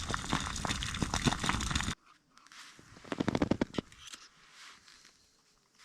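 Crinkling and rustling of a plastic food pouch or snack packaging, loud and crackly, cutting off abruptly about two seconds in. About a second later there is a short burst of sharp crinkles.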